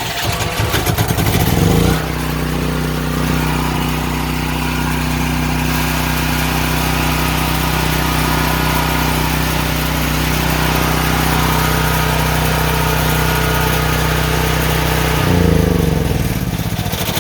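Firman portable generator's engine running on natural gas just after an electric start: it settles to a steady governed speed about two seconds in, then runs evenly, with a brief surge in speed near the end.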